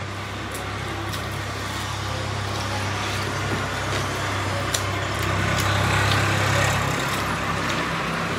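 A steady low machine hum, like a motor or engine running, with a rushing noise over it that swells louder about five to seven seconds in and then eases off. A few light clicks come through.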